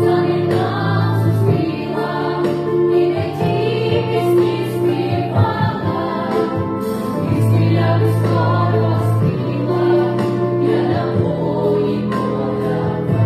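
Young vocal ensemble singing a song together over a recorded backing track with a steady low bass.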